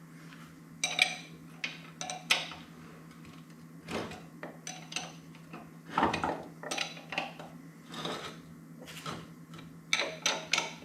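Metal tools and parts being handled: about a dozen irregular clinks and knocks, some with a brief metallic ring, with a quick cluster of them near the end.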